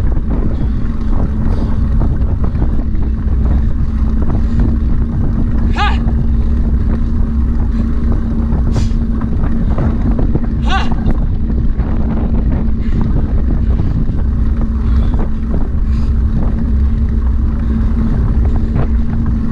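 Steady vehicle motor noise with a constant hum and wind rumbling on the microphone, from a camera moving alongside at running pace. A few brief high-pitched wavering sounds cut through, the clearest about six and eleven seconds in.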